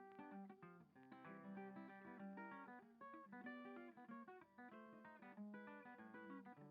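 Quiet background music on acoustic guitar: a steady run of plucked notes over a lower repeated bass line.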